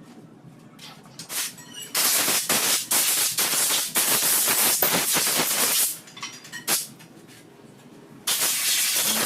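Compressed-air blow gun hissing in blasts, typical of blowing out transmission parts during a rebuild. Two short puffs, a long blast of about four seconds, another puff, then a second long blast starting near the end.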